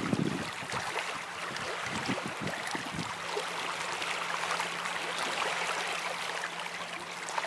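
Small waves lapping and trickling over flat stones at the water's edge of a shallow rocky lake shore, an even washing hiss. A faint steady low hum comes in about three seconds in.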